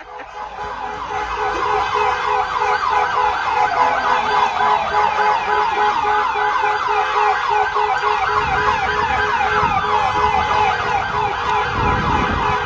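Several emergency-vehicle sirens sounding at once: fast repeated yelp sweeps overlap slower rising-and-falling wails, over a steady low tone. A low rumble grows in the last few seconds.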